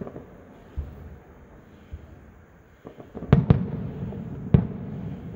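Fireworks going off: a few scattered bangs, then two loud reports close together about three seconds in and another a second later, with a low rumble between them.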